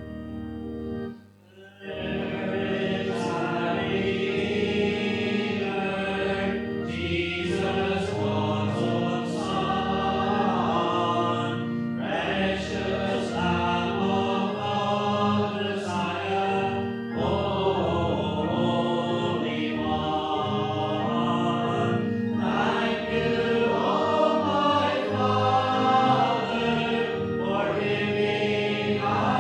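Congregation singing a hymn with organ accompaniment. A held organ chord breaks off about a second in, and the singing starts shortly after in steady phrases.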